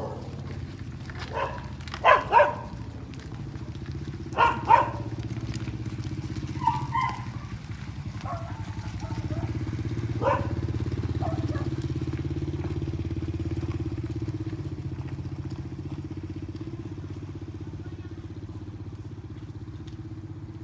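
Cattle hooves clopping on a paved street: a few scattered hoofbeats, the loudest in two quick pairs, over the steady hum of an engine running.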